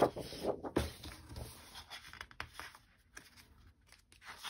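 Sheets of patterned scrapbook paper rustling and flapping as they are turned over by hand, loudest in the first second, then quieter handling.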